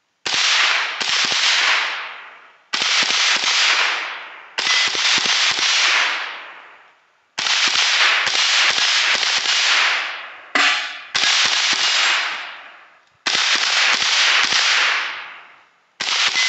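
Smith & Wesson M&P 15-22 semi-automatic .22 LR rifle firing about a dozen shots in irregular groups, several in quick succession, each shot leaving a long echo that dies away over a second or two.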